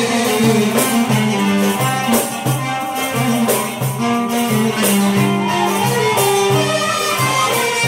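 Iraqi folk ensemble playing an instrumental passage: violin and oud carrying the melody over regular hand-drum beats, with no singing.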